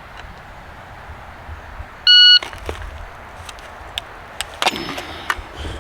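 Shot timer giving its beep, a single short, high, steady tone about two seconds in. Scattered faint clicks follow.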